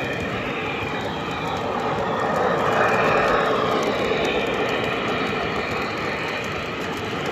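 O gauge model freight train rolling past on three-rail track: a steady rumbling clatter of metal wheels over the rails, swelling a little about three seconds in.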